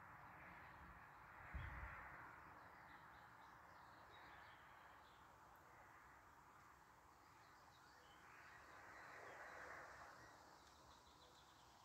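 Faint crows cawing now and then, with small birds chirping faintly, over quiet outdoor background. A soft low bump about one and a half seconds in.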